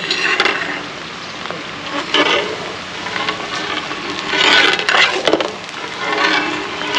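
Cauliflower and potato pieces sizzling in hot oil in an iron kadhai, with a flat metal spatula scraping and stirring through the pan several times.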